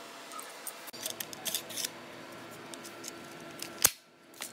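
Strips of metal carpet staples clicking as they are handled and loaded into a carpet stapler's magazine: a run of light clicks about a second in, then one sharp metal click near the end and a fainter one after it.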